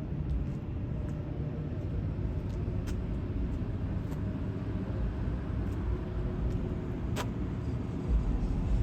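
Steady low outdoor rumble, with a few faint clicks and one sharper click about seven seconds in.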